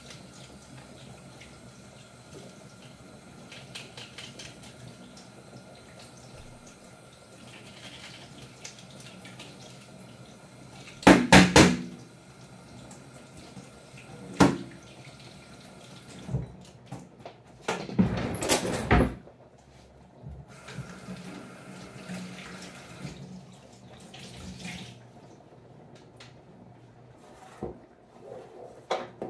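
Kitchen tap running into a stainless-steel sink while hands and a utensil are washed under it. A few loud knocks and clatters stand out, a cluster about eleven seconds in, one near fourteen seconds and another cluster around eighteen seconds.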